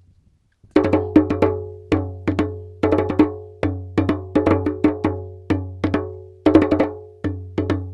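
Drums playing a signalling rhythm in short, quick groups of ringing strokes, about one group a second, starting about a second in. It is one side of a drum call-and-answer signal.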